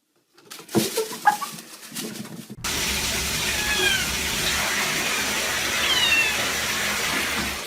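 A cat meows twice in short falling cries over a steady rushing noise that starts suddenly, after a few knocks and scrapes.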